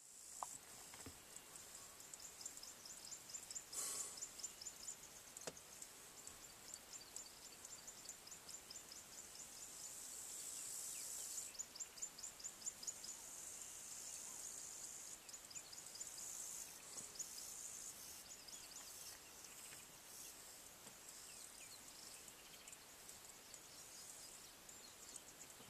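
Insects chirping in the bush, a faint, high-pitched pulsing at several beats a second, with a brief knock about four seconds in.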